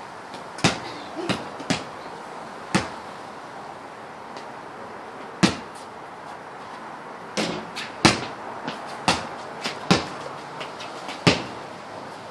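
Basketball bouncing on a concrete floor: a series of single sharp bounces at uneven intervals, with a lull from about three to five seconds in.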